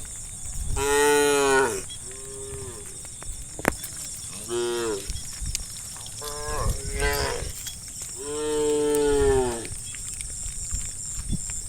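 Cows in a herd mooing: about five drawn-out moos, one after another, the loudest about a second in and again at around eight to nine seconds.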